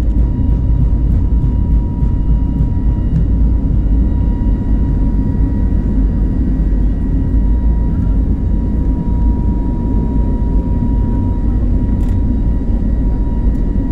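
Inside the cabin of an Airbus A321neo accelerating down the runway: its CFM LEAP-1A engines at high thrust give a loud, steady low rumble with a thin steady whine above it.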